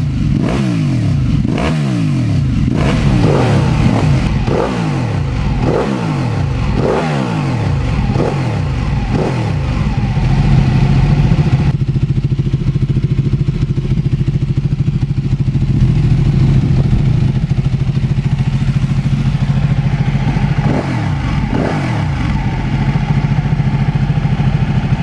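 Motorcycle engine revving in quick repeated pitch sweeps, then holding a steady high-rev note from about ten seconds in.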